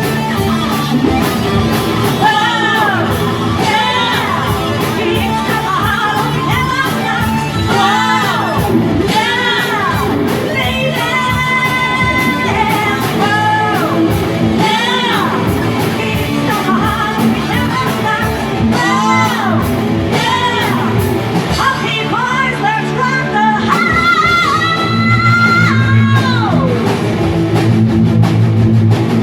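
A rock band playing, with drums and guitar under a lead singer who sings and holds long notes, the longest about two thirds of the way through.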